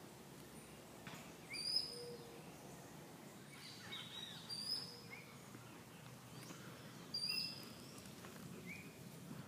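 A bird singing outdoors: a short phrase of high chirps and quick glides, repeated about every three seconds over steady background noise.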